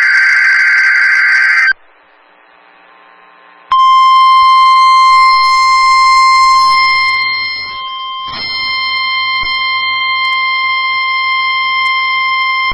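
NOAA Weather Radio emergency alert test: the tail of a screechy SAME digital data burst cuts off, and after a two-second pause the 1050 Hz warning alarm tone sounds as a steady high beep for about nine seconds.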